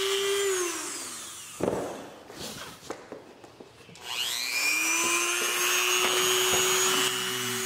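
Dremel rotary tool running at high speed, then switched off and winding down with a falling whine. A sharp knock comes about a second and a half in, then a few light clicks, and about four seconds in the tool is switched back on, spinning up with a rising whine and running steady.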